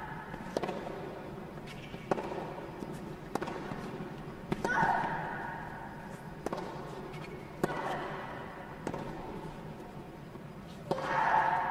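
Tennis rally on a hard court: sharp knocks of racket strings on the ball about every one to two seconds, with a short grunt from a player on the strike about five seconds in and again near the end.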